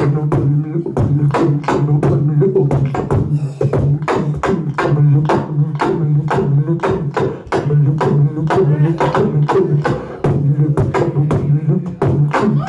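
Beatboxing into a hand-cupped microphone through a PA: sharp, even percussive hits about four a second over a held low bass hum that breaks off and restarts every second or two.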